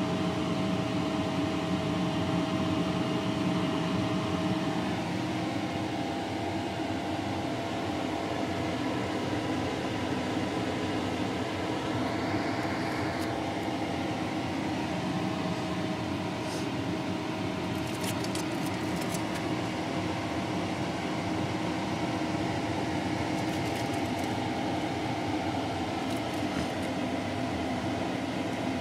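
A steady mechanical hum with several faint steady tones in it, and a few light clicks past the middle.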